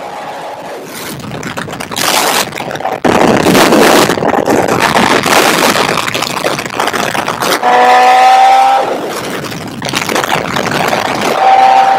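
Heavy wind rush over a motorcycle-mounted microphone while riding at speed, surging in loudness. A sport-bike engine note rises out of the wind strongly about eight seconds in, lasting about a second, and again near the end.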